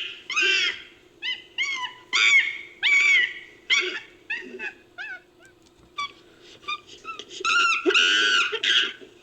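Designed ape-creature calls built from chimpanzee vocalisations: a run of short calls that rise and fall in pitch, about two a second, fading to quieter chirps midway, then a louder, longer call near the end.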